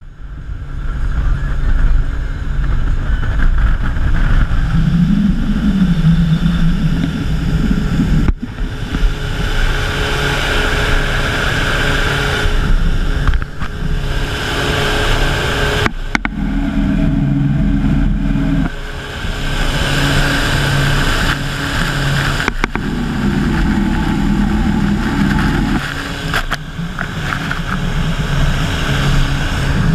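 Powerboat running fast: a steady low engine drone under the rush and spray of churning wake water, with wind on the microphone. The sound cuts out briefly a few times.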